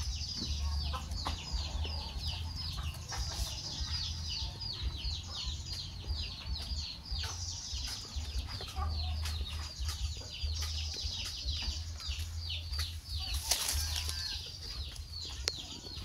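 Birds chirping in a fast, unbroken run of high, downward-sliding notes, over a low, uneven rumble.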